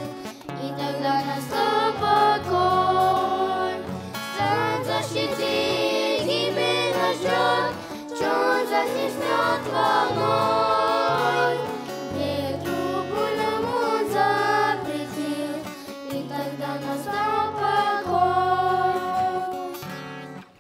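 A group of children singing a Russian-language Christian song in unison into microphones, accompanied by an acoustic guitar.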